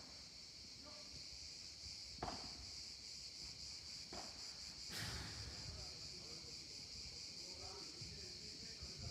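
Padel balls struck by rackets during a rally: three sharp pops about two, four and five seconds in, the last the loudest. Under them runs a steady high insect drone.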